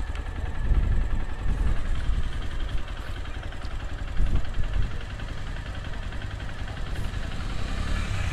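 Motorcycle engine running at low speed as the bike rolls along a dirt road, a steady low rumble that swells briefly a couple of times.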